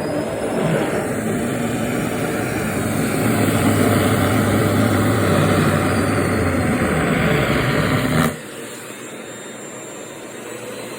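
Vacuum cleaner running with a steady rushing noise, its suction drawing in the fabric of a skirt being worn; about eight seconds in the sound drops suddenly to a quieter, thinner noise that carries on.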